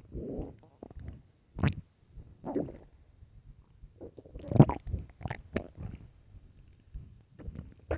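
A hungry, empty human stomach growling: a string of short, irregular gurgles and rumbles, with a louder cluster about halfway through.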